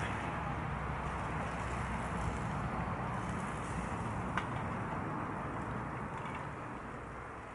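Gas canister camping stove burner hissing steadily under a pot, with a single sharp metal tap about four seconds in; the hiss gets a little quieter near the end.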